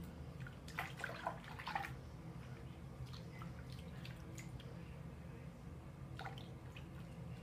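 Water splashing and dripping as soap is rinsed out of a plastic toy pony's hair, in a cluster of small splashes about a second in and a few more near the end, over a steady low hum.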